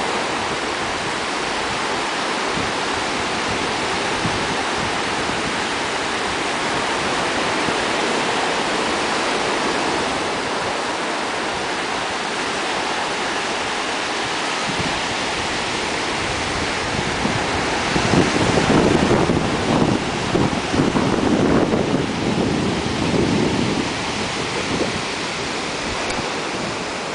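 Ocean surf breaking and washing up on a sandy beach, a steady rush. About two-thirds of the way in, gusts of wind buffet the microphone with an uneven low rumble for several seconds.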